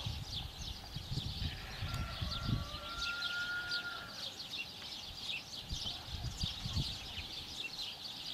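Small birds chirping busily and continuously in a dense, rapid chatter. A thin steady whistle-like tone holds for a couple of seconds near the start, and irregular low rumbles of wind hit the microphone.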